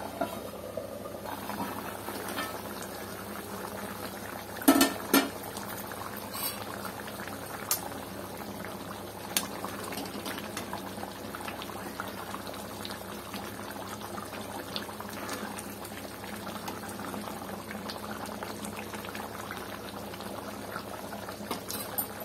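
Thick tamarind fish curry bubbling steadily at a simmer in an iron kadai. Two sharp knocks stand out about five seconds in.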